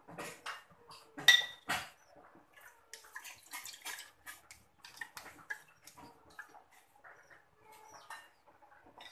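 Metal spoon scraping and tapping against a plastic sieve as grated coconut is pressed to strain out coconut milk, with the milk trickling into the bowl below. Two louder knocks come about a second and a half in.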